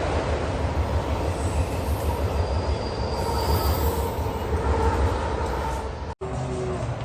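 An off-road vehicle driving hard over rough ground: a dense, rattling rumble of engine and running gear. It cuts out abruptly about six seconds in, and a steadier engine hum follows.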